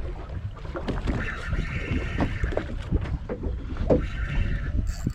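Wind buffeting the microphone and water slapping against a small boat's hull, with short knocks throughout. From about a second in until just before the end, a steady high whine sounds over it.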